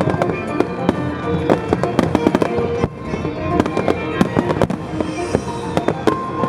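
Fireworks bursting and crackling in quick succession, many sharp bangs overlapping, with music playing underneath.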